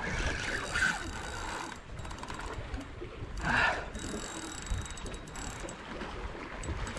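A Daiwa BG 3000 spinning reel cranked hard against a hooked fish, its gears winding and clicking, with a run of rapid fine clicks about four seconds in.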